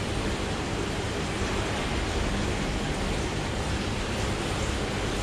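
Steady rushing of water in an aquarium tank, even and unbroken.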